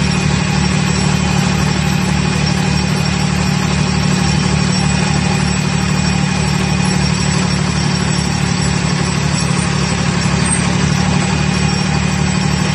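Vibratory pile-driving hammer running steadily, a loud, unbroken low drone.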